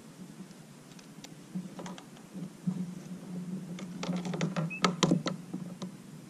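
Spinning rod and reel being worked: a run of small clicks and light rattles, densest about four to five seconds in, over a low steady hum.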